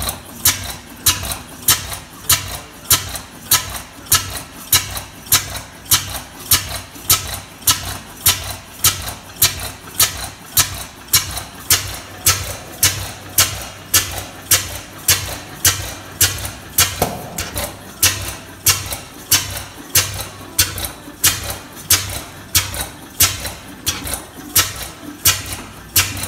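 Crossley JJ single-cylinder horizontal stationary engine running steadily, with a sharp, even beat about one and a half times a second over a low hum.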